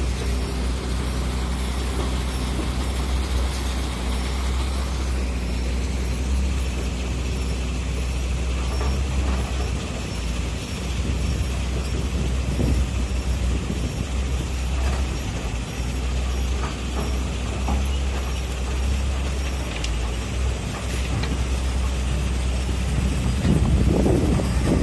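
Heavy earthmoving machine's diesel engine running steadily with a deep drone, with scattered knocks and clanks that grow louder and more frequent near the end.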